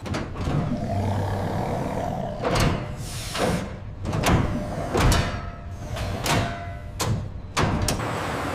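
Factory machinery sounds: about nine sharp hissing knocks and clanks at uneven intervals, over a steady low industrial hum.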